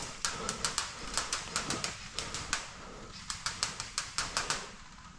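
Airsoft gunfire: a string of sharp clicking shots in short, irregular bursts of a few at a time, stopping near the end.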